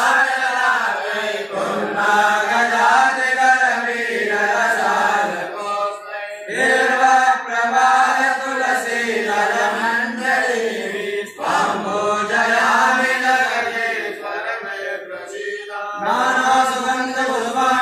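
Group of men chanting a mantra together, led by a swami, in long phrases broken by short breaths about six, eleven and sixteen seconds in.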